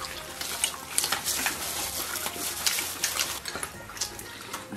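Close-up eating of crisp roasted lamb ribs: chewing, sucking and tearing meat, heard as a steady stream of small wet crackling clicks.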